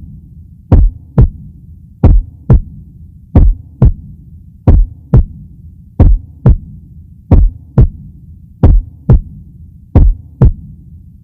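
Slow heartbeat sound effect: a steady double thump, lub-dub, repeating about every 1.3 seconds over a low hum.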